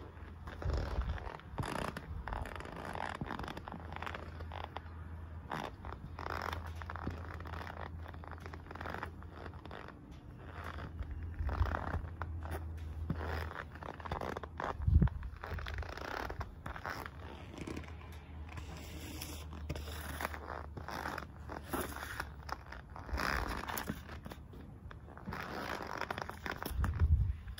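Rubber-soled Nike Air Force 1 sneakers stepping and scuffing on concrete: irregular scrapes and footfalls, with one louder stomp about halfway through. A low hum comes and goes underneath.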